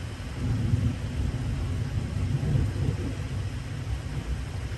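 Thunder rumbling low, growing louder about half a second in and carrying on, over the steady hiss of heavy rain.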